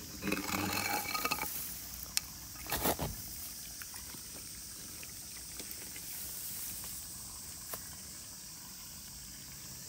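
Rustling and scuffing of rubber boots moving through grass, with a sharp click about two seconds in and a brief rustle near three seconds, then a faint steady high hiss.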